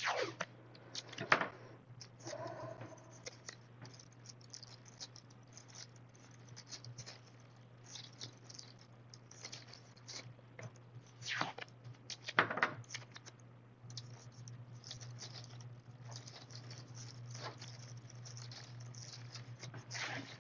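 Handling noise of taping off a vase: blue painter's tape pulled and pressed down over a plastic bag, with crinkling, scratches and scattered clicks, a few louder about a second in and again past the middle. A steady low hum runs underneath.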